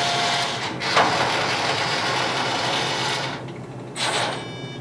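Vend motors of an AP Studio 2 snack vending machine running, their spiral coils turning as the board tries to home them after the door interlock switch is pressed: part of a fault where random motors spin whenever the door is closed, which the technician takes for a homing issue. A click about a second in; the running stops about three seconds in.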